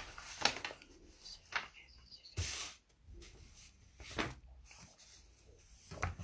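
Scattered handling noises: several sharp clicks and knocks, with a brief rustle about two and a half seconds in, as something is searched for.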